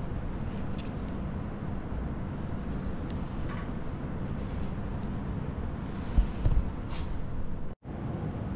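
Steady machine hum over a constant noise, with a few light knocks about six to seven seconds in as a glass IR cell is handled and fitted into a metal clamp. The sound cuts out for an instant near the end.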